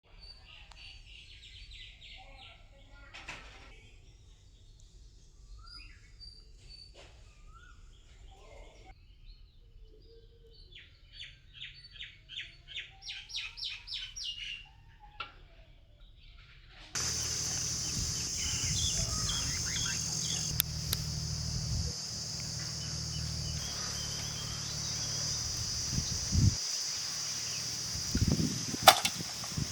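Small birds chirping, with a quick repeated trill in the first half. About halfway through the sound changes abruptly to a steady high-pitched hiss over a low hum, with a few sharp clicks near the end.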